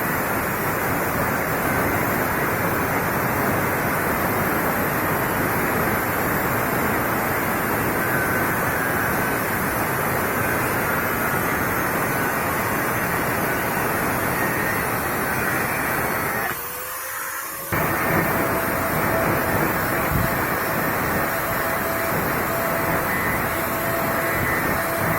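Angle grinder cutting a bicycle fork: a steady, loud grinding noise. It stops for about a second some 17 seconds in, then starts again.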